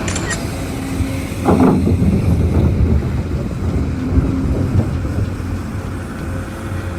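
Steady low rumble of a heavy engine running, swelling louder about one and a half seconds in.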